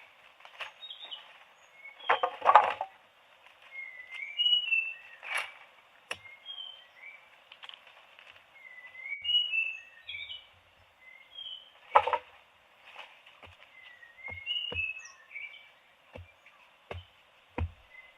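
Small birds chirping repeatedly, short quick chirps that rise and fall in pitch, with several louder knocks or rustles in between.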